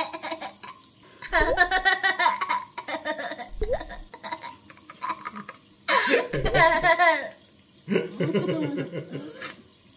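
Young child laughing in several high-pitched bursts of rapid giggles.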